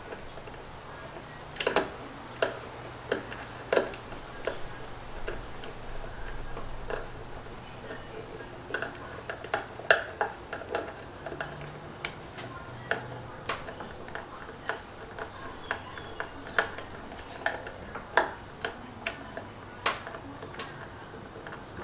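Irregular light clicks and taps of hand work with small hardware and hand tools, a few a second with pauses, over a faint low hum.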